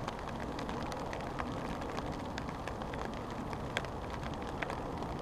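Rain falling steadily, with scattered drops ticking irregularly on a fishing umbrella overhead.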